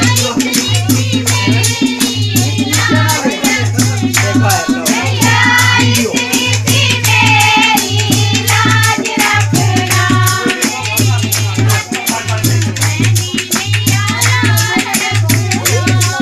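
Live Bhadarwahi devotional bhajan music: a singing voice over fast, steady hand-percussion strokes and a low beat that pulses about once every three-quarters of a second.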